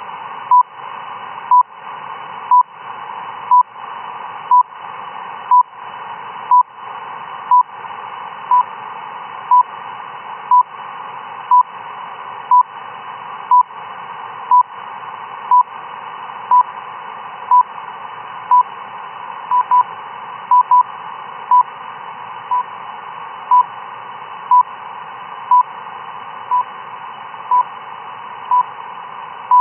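RWM time signal heard on a shortwave receiver in lower sideband: a short 1 kHz beep once a second over steady radio band hiss. Near the middle, two seconds in a row carry doubled pips, RWM's way of encoding the DUT1 time correction.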